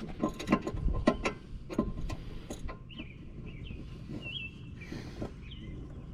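Hand tools clicking and clinking against the metal of a brake sensor fitting in a quick irregular run for the first two and a half seconds, then quieter, with a few short high chirps.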